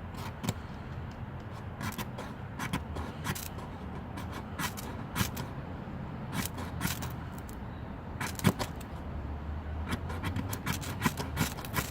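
The nail file of a Leatherman Micra multitool scraped down a ferrocerium rod, again and again, to throw sparks. The strokes are short and irregular and come faster near the end.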